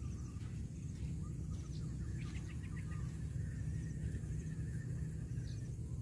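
Steady low wind rumble on the microphone, with scattered faint bird chirps.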